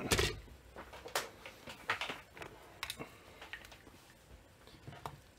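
Light clicks and knocks of a circuit board and tools being handled on a workbench: several separate taps spread over a few seconds.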